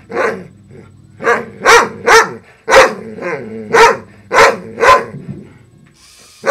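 A large dog barking repeatedly, about eight loud single barks, stopping about five seconds in.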